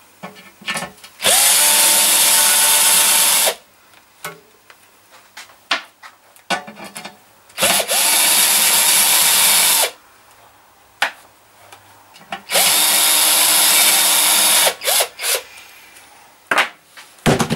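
Cordless drill-driver running in three bursts of about two seconds each, unscrewing hinge screws from a sheet-metal cowling. Each burst is a steady motor whine. Between the bursts come small clicks and rattles of handling.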